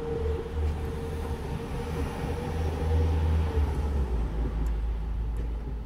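Passenger train passing over a level crossing, heard from inside a waiting car as a steady low rumble with a faint hum that fades out about three and a half seconds in.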